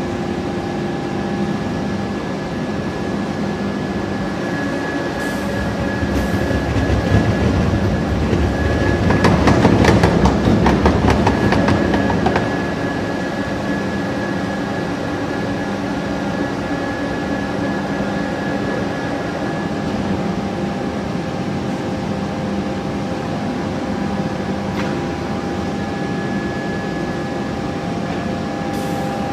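Ring rolling machine running as it rolls a red-hot steel ring: a steady machine drone with several held tones. From about seven seconds in it grows louder and rougher, with dense crackling, easing back at about twelve seconds.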